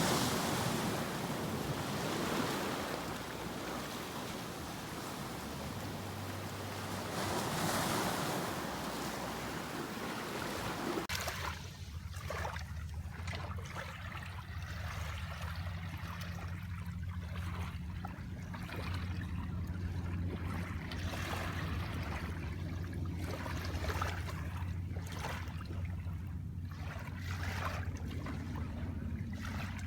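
Ocean waves washing on the shore in a dense, even rush. About a third of the way in the sound changes abruptly to a quieter wash of water with a steady low hum underneath.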